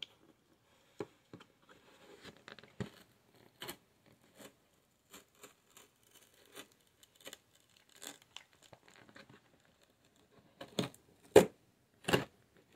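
A small blade cutting and scraping through packing tape along the edge of a cardboard box: a string of short, scratchy clicks and rips, with the three loudest coming near the end.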